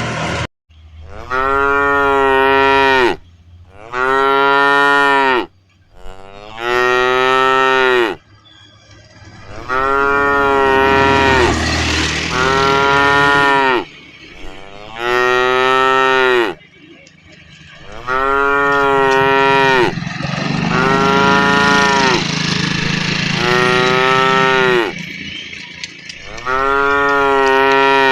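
Cows mooing repeatedly: about ten long moos one after another, each a second and a half to two seconds long, with short pauses between.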